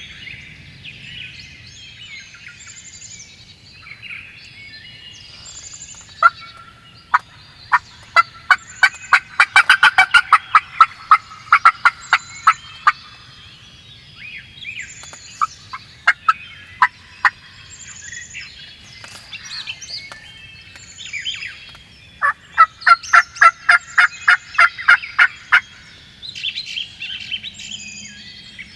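Two long runs of loud, evenly spaced turkey yelps, about four notes a second, the first starting about six seconds in and the second a little after twenty-two seconds. Songbirds sing throughout.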